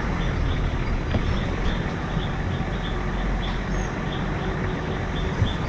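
Off-road 4x4's engine running with a steady low rumble as the vehicle crawls along a rough trail. A short high chirp repeats about three times a second over it.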